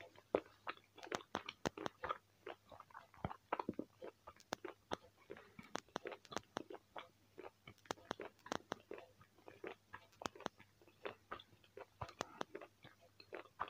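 A person chewing a chewy piece of biltong close to the microphone: an irregular run of short wet smacks and clicks, a few a second.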